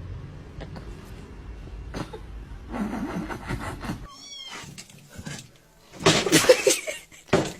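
A cat meowing, with a louder call about two thirds of the way through.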